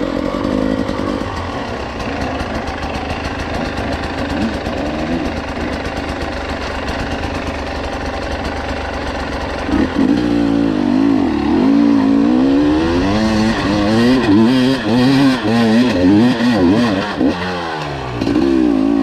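Dirt bike engine running steadily, then from about ten seconds in revving hard, its pitch rising and falling over and over.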